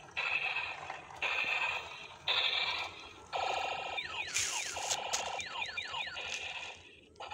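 Battery-powered toy robotic car running, its gear motor whirring while it plays electronic sound effects in short segments about a second each, with quick rising and falling swoops in the second half.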